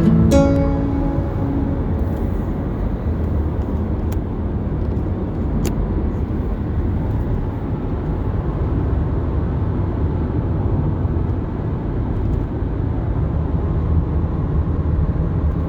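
Steady low rumbling noise with no distinct events, cutting off abruptly near the end.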